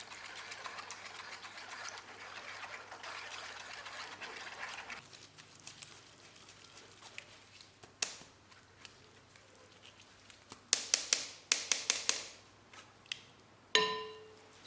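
Lemon juice pouring through a strainer into a bowl of sugar for about five seconds, then a quick run of sharp clicks and taps from kitchen utensils, and a single ringing clink near the end.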